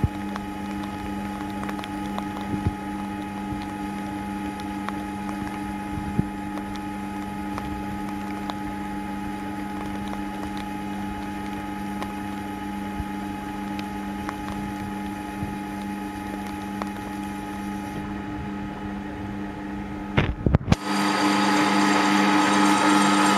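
Metal lathe running steadily while a small tool turns down a traction-engine compensating centre supported by a live centre: a constant hum and whine from the lathe, with occasional faint ticks. About twenty seconds in there are a few clicks, after which the running is louder.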